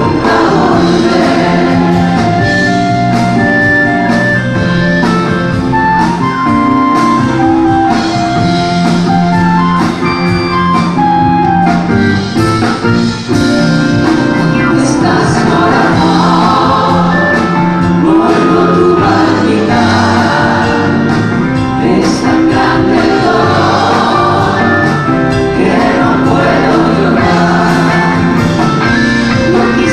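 Mixed vocal group of men's and women's voices singing a ballad in harmony, backed by a live band with drums and keyboards, played through a theatre's sound system.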